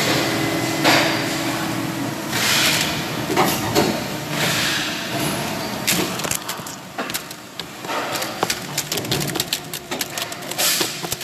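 Factory machine noise with a few rushing bursts in the first half, then from about six seconds in a rapid clatter of hard plastic trays being handled and knocked together by gloved hands.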